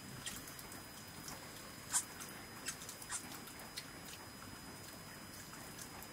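Quiet eating by hand from metal plates: faint, scattered small clicks and taps of fingers and food against the plates, with the sharpest click about two seconds in.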